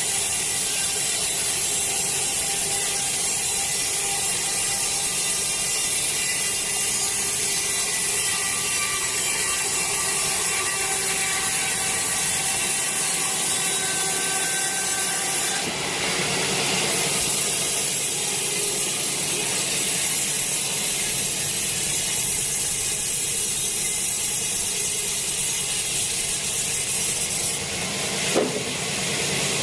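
Sawmill machinery running steadily while sawing a teak log. The sound shifts a little past halfway, and there is a short knock near the end.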